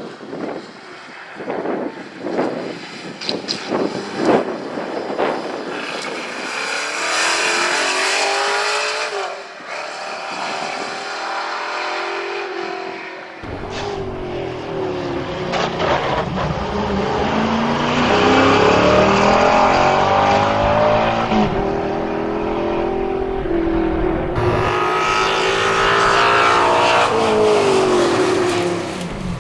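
Race-tuned MG-B GT's dry-sumped, naturally aspirated 4.6-litre Rover V8 racing up a hillclimb course, revving hard through the gears, its note rising and falling as it approaches and passes. Heard in three stretches from different spots along the road.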